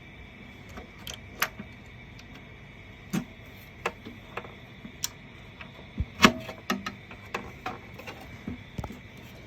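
Irregular clicks and knocks of small parts and tools being handled during the repair of a paper shredder, the loudest knock about six seconds in, over a faint steady high whine.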